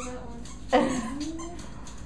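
A dog giving one short whine about three-quarters of a second in, its pitch dipping and then rising.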